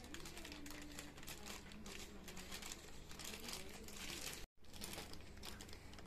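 Clear plastic parts bag crinkling as it is handled in the hands, an irregular crackle throughout that cuts out for an instant about four and a half seconds in.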